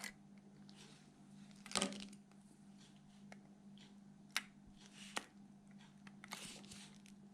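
Faint, sparse clicks and taps of small watch parts being handled and fitted into a wristwatch case, with one louder click about two seconds in, over a steady low hum.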